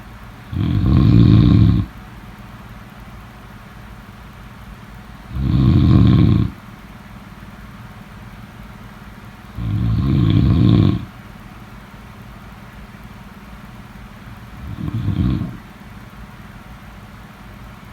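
Snoring: four snores about four to five seconds apart, each about a second long, the fourth softer than the rest. A faint steady low hum runs beneath them.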